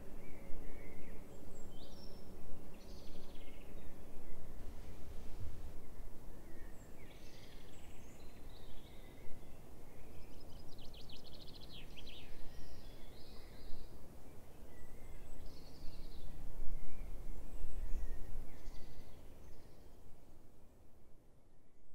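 Wild birds singing and calling outdoors, with a rapid trill about halfway through, over a low rumble that swells twice. A held low chord fades out in the first few seconds, and the whole soundscape fades away near the end.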